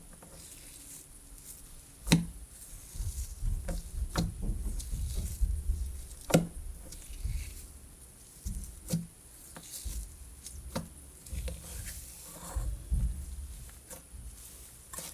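Cloud-texture slime being stretched and squished by hand, with low rumbling handling noise and several sharp clicks and pops, the loudest about two seconds in and about six seconds in.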